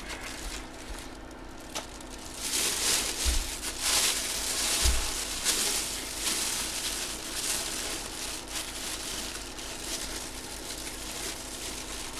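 Packaging crinkling and rustling as it is handled, in a run of uneven bursts that are busiest from a couple of seconds in until past the middle.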